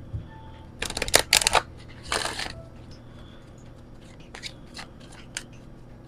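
Deck of oracle cards being shuffled by hand: a quick run of flicking cards about a second in, then a short swish of cards sliding together, and a few light taps and slides of the cards later on.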